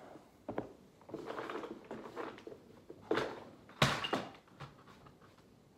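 Rummaging through a small plastic tackle box: small parts clicking and rattling, with two sharp knocks about three and four seconds in, the second the loudest.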